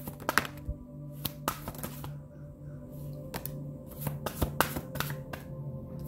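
A deck of tarot cards being shuffled by hand: irregular sharp slaps and flicks of the cards. Behind them runs quiet background music with a steady low drone.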